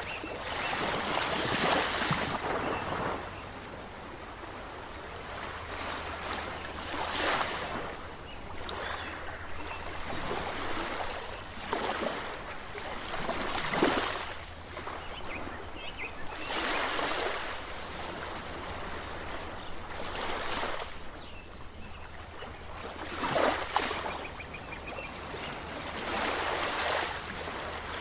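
Ocean surf: waves breaking and washing in, with a surge of rushing water every few seconds over a steady background wash.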